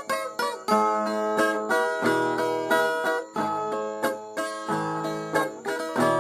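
Viola caipira, the Brazilian ten-string folk guitar, playing a plucked instrumental passage between sung verses, a run of separately struck notes without voice.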